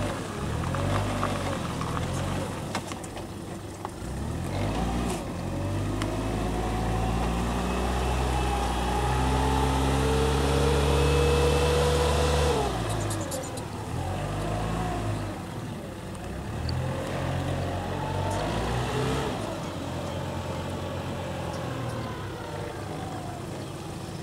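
Fiat OM D23 diesel forklift's engine running as the forklift drives, its pitch and loudness climbing to a peak about halfway through, then dropping back and rising and falling again with the throttle.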